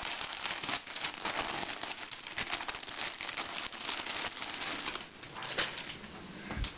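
Thin clear plastic packaging bag rustling and crinkling as it is opened and handled, a dense crackle that thins out near the end.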